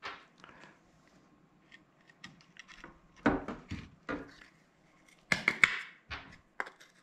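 Small plywood spacer blocks, metal washers and bolts being handled and set down on a steel chainsaw bar and tabletop: scattered clicks, taps and knocks. They come thickest about three seconds in and again a little past five seconds.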